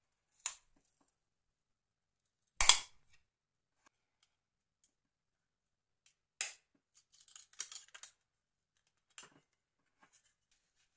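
Plastic clicks and snaps from a Nokia 1610's front housing parts being handled and pried apart. A sharp snap comes a quarter of the way in, and scattered smaller clicks and rattles follow in the second half.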